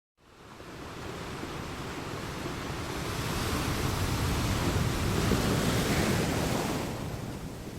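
A steady rushing noise with no clear source, fading in from silence, swelling about midway and easing off near the end.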